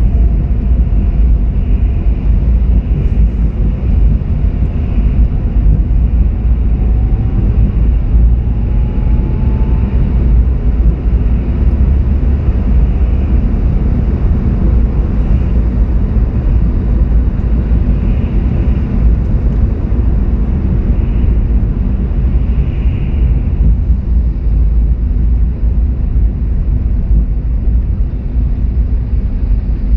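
Steady low rumble of a car driving on a wet road, tyre and engine noise heard from inside the cabin.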